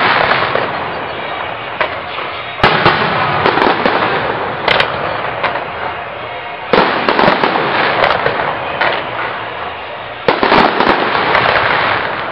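Aerial fireworks display: loud bangs of shells bursting every two to four seconds, each followed by a spell of crackling that fades before the next.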